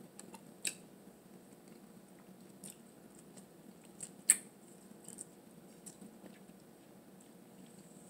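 Eating a blue crab boil: quiet chewing and handling of crab, with a few sharp clicks and cracks, the loudest about four seconds in.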